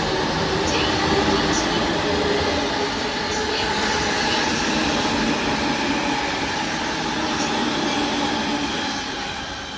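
JR E231-500 series electric commuter train running out of the station: a steady rumble of wheels on rail with a few steady tones through it. It fades near the end.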